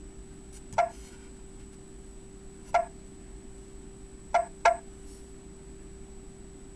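Four short clicks as buttons on a Tesla Roadster's dashboard touchscreen are pressed, the last two in quick succession. A faint steady hum runs underneath.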